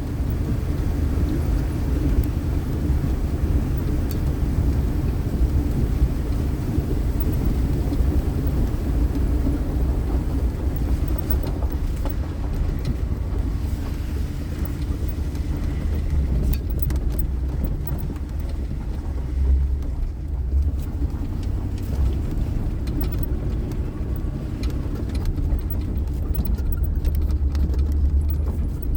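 Steady low rumble of a car driving, with faint scattered ticks in the second half.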